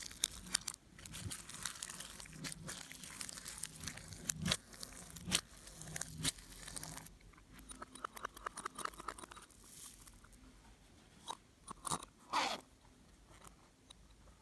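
Slime being mixed and squeezed by hand, with clay and glitter worked in: a dense run of wet crackling and clicking, easing off about halfway, then a few louder separate pops near the end.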